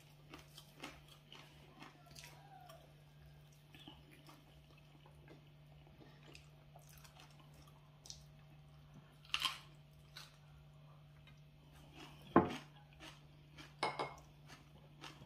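People eating injera by hand at a table: soft chewing and a few short clicks and taps of hands and dishes, with one sharper knock about twelve seconds in, over a faint steady hum.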